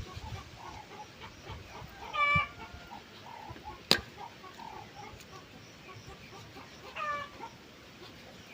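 Chickens calling: two short pitched squawks about five seconds apart, with a single sharp click between them.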